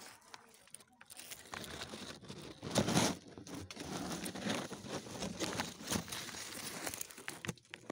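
Leaves and twigs rustling and crackling close to the microphone, in irregular bursts with small snaps, loudest about three seconds in.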